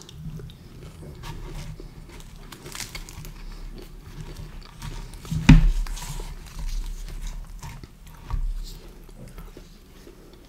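Close-miked chewing and biting of pizza, with small mouth clicks throughout. A sharp, loud knock comes about halfway through, and a smaller one near the end.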